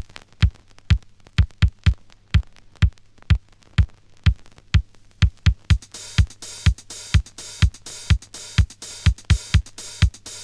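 Electronic dance music: a drum-machine kick beating about twice a second with sharper percussion hits between the kicks. About six seconds in, a hissing high layer comes in over the beat.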